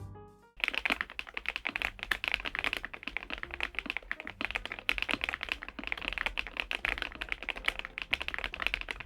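Kzzi K98 mechanical keyboard, leaf-spring mounted with PBT keycaps, being typed on fast: a dense, continuous run of key clacks starting about half a second in.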